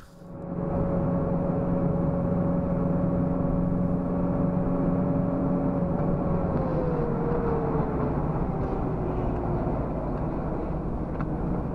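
Engine and road noise inside a moving vehicle's cabin, heard through a dashcam: a steady rumble with an engine tone that slides down in pitch from about six seconds in as the engine slows.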